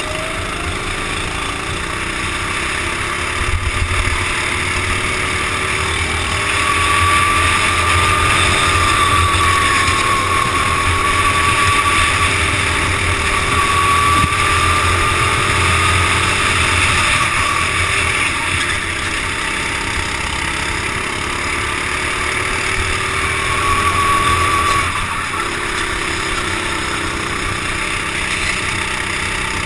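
Go-kart engine running at racing speed, heard from the driver's helmet, over a steady rush of wind and road noise. The engine's whine rises and falls with the throttle through the corners. It is loudest through the middle stretch and eases off about three quarters of the way in.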